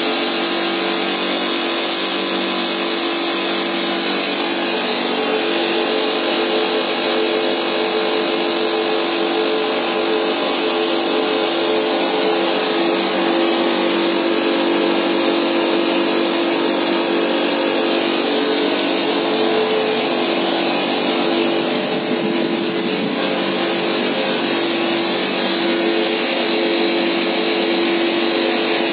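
Steel tube mill running, its drive and roll stands giving a loud, steady mechanical hum with several held tones.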